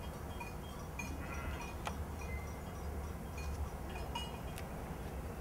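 Small bells on a grazing flock of sheep clinking irregularly at several pitches, over a low steady rumble.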